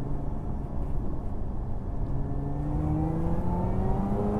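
Lotus Emira's supercharged 3.5-litre V6 heard from inside the cabin, pulling under acceleration in a manual gear. The engine note rises steadily in pitch through the second half.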